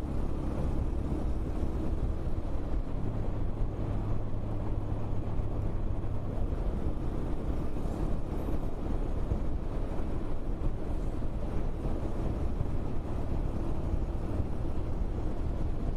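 Motorcycle engine running at riding speed, mixed with wind and road rush on an action camera's microphone. The low engine note steps up about three seconds in and shifts a little later on.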